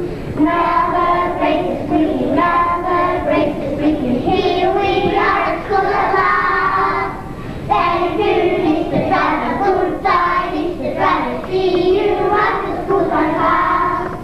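A class of young children singing a song together in unison, phrase after phrase with short breaths between.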